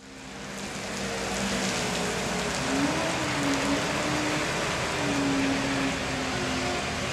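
Combilift four-way forklift's engine running, its pitch rising and falling twice, under a steady hiss that fades in at the start.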